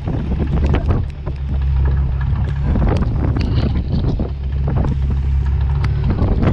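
Strong wind buffeting the microphone over a small boat's engine running with a steady deep hum, with heavy rain and spray striking in many sharp taps.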